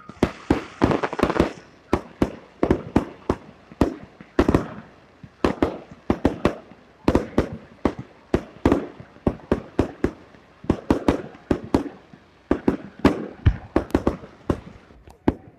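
Fireworks display: a rapid barrage of aerial shells bursting, sharp bangs coming about three or four a second, some with a short echoing tail, with two brief lulls.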